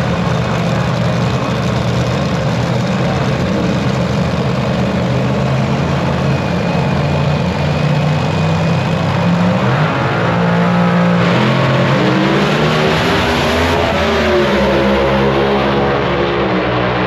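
Drag racing car engines running steadily, then revving from about ten seconds in, the pitch rising and falling.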